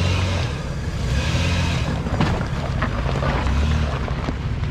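Toyota 4Runner engine running under load in surges as the truck crawls over rocks, with wind noise on the microphone and a sharp knock about two seconds in.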